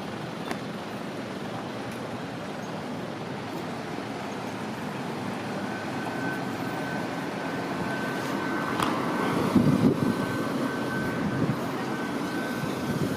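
Street traffic and road-work noise: a steady rumble of passing vehicles. About halfway through, a high, steady electronic tone comes in and keeps sounding, and a few knocks land about ten seconds in.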